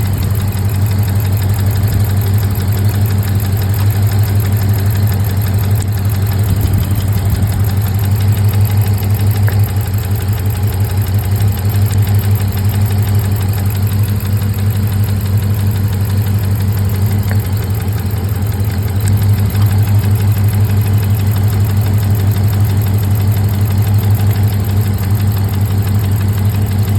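6.4-litre HEMI V8 idling steadily with a misfire from one dead cylinder, which persists after a new coil pack; the owner suspects fuel delivery or a pushrod.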